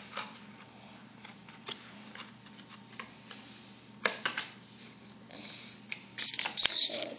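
Clear plastic toy packaging crinkling and rustling as it is handled, in short scattered rustles, louder about four seconds in and again near the end.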